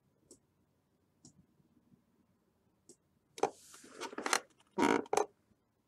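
A few faint computer mouse clicks, then about three seconds in a cluster of louder rustling and knocking handling noises close to the microphone, loudest a little before the end.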